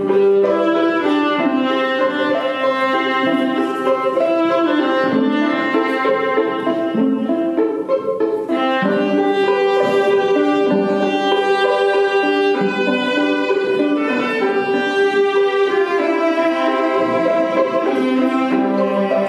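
Instrumental music led by violin with lower strings, slow held notes changing smoothly, played as a bridal processional.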